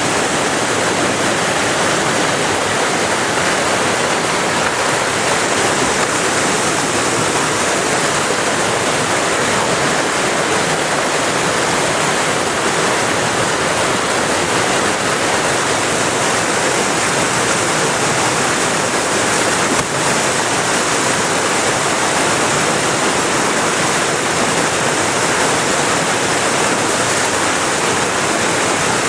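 Whitewater rushing steadily as one even, unbroken wash of water noise.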